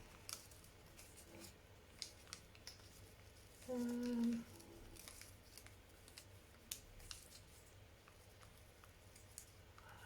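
Faint rustles and small clicks of paper and card being handled as journal inserts are tucked back into a pocket, with a brief hum from the woman about four seconds in.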